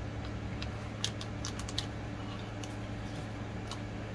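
Small, irregular clicks and crinkles of a 5 Surprise toy capsule's plastic and paper packaging being handled and pulled open, over a steady low hum.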